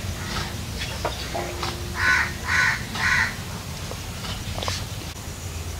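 A crow cawing three times in quick succession, about two seconds in, over a low steady hum.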